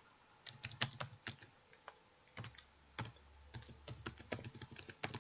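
Typing on a computer keyboard: a run of quick, irregular keystrokes that starts about half a second in.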